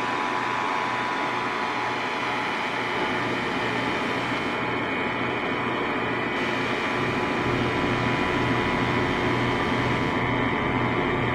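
A vehicle engine running steadily, with a low throb pulsing about twice a second and a deeper rumble building in the second half.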